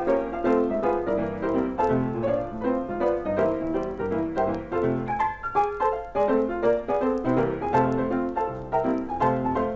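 Piano music: a quick succession of short notes and chords, as a cartoon accompaniment score.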